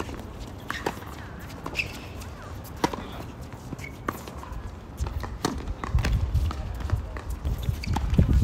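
Tennis balls struck by rackets and bouncing on a hard court: a string of sharp knocks about a second apart, over a low rumble that swells in the second half.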